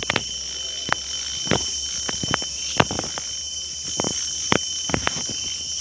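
Insects shrilling in a steady, high-pitched drone, with a dozen or so sharp clicks and snaps at irregular intervals.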